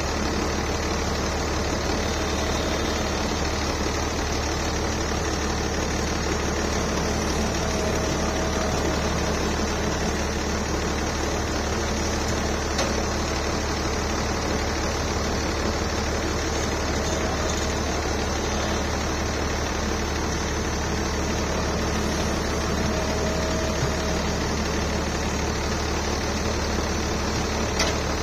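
Diesel engine of a Daewoo wheeled excavator running steadily as it digs soil, with a deep low hum.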